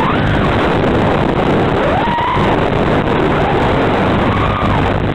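Mini FPV quadcopter's brushless motors whining, their pitch rising and falling several times as the throttle changes, over a steady heavy hiss.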